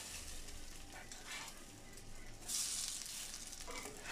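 Eggplant fritters sizzling in a dry nonstick frying pan, with no oil, as they are turned over with a plastic spatula. There is a brief scrape, then a louder burst of sizzling about two and a half seconds in as a fritter is flipped onto the hot pan.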